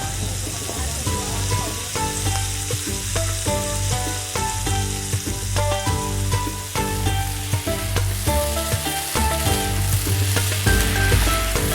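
Food frying and sizzling on a street-food stall's hot pan, with stirring. A background tune of short plucked-sounding notes and a steady bass plays along.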